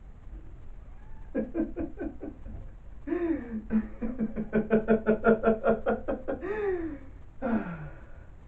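A man laughing: a short run of quick laughs about a second in, then a longer, louder run of rapid, evenly spaced laughs, ending on a falling voiced glide.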